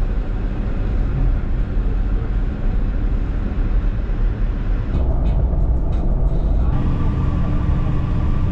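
Road and engine noise from inside a moving vehicle: a steady low rumble. The sound changes about five seconds in and again near seven seconds, after which a steady hum runs under it.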